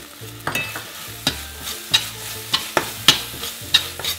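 Slotted metal spatula scraping and knocking against a stainless steel frying pan as a thick chili and fermented bean paste sauce is stirred and fried, with sizzling underneath. The scrapes come about two or three a second.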